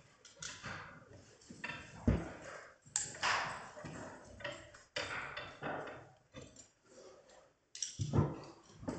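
Ice axe pick scraping and knocking on resin climbing holds during dry tooling, with irregular scrapes and a heavier knock about two seconds in.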